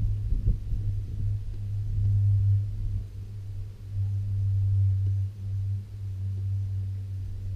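A steady low hum over a low wind rumble, dipping briefly a few times.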